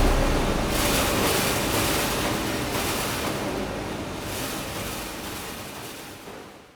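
A designed soundtrack's steady rushing noise ambience, fading out gradually and dying away at the very end.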